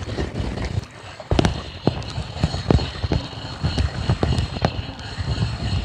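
Spinning reel being cranked hard against a hooked cutlassfish, with a steady high whine and irregular clicks and knocks throughout.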